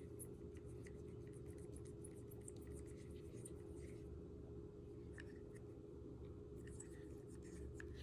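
Faint, scratchy rubbing strokes of a lens-cleaning pen's buffer tip on the glass of a 37 mm lens protector filter, made up of many small ticks and scrapes. Under them is a steady low hum.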